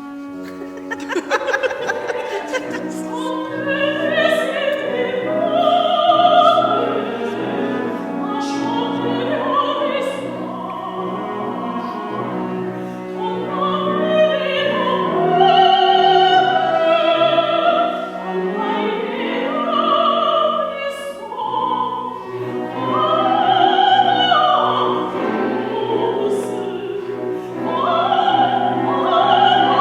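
Operatic singing with a wavering vibrato over orchestral accompaniment, with sustained low notes beneath the voice. A sudden sharp attack sounds about a second in.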